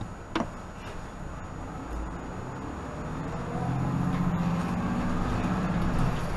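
2018 Nova Bus LFS diesel city bus heard from inside, under way. A sharp knock comes about half a second in. From about three seconds in, the engine and drivetrain grow louder with a slowly rising whine as the bus picks up speed.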